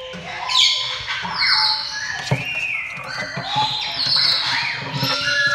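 Parrots squawking and whistling, several calls overlapping with rising and falling chirps, and a single knock about two seconds in.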